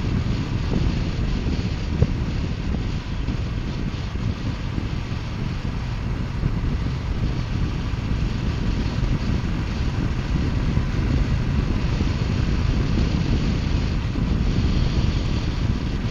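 Wind buffeting the microphone on a motorcycle at steady cruising speed, over the running of a 2018 Triumph Bonneville T120's 1200 cc parallel-twin engine. There is one brief knock about two seconds in.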